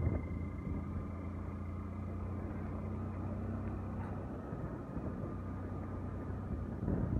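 Engine of a road vehicle running steadily as it drives along, a constant low drone with road noise.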